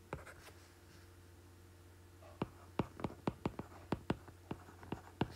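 Stylus tip tapping on a tablet's glass screen while handwriting: one small click at the start, then from about two seconds in a quick, irregular run of short clicks, several a second.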